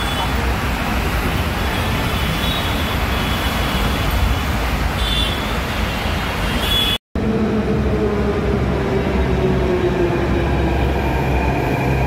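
Steady rush of busy road traffic, cars and motorbikes. After a sudden cut about seven seconds in, a Delhi Metro train runs along the elevated platform with a rumble and a motor whine that falls in pitch, as it does when the train pulls in.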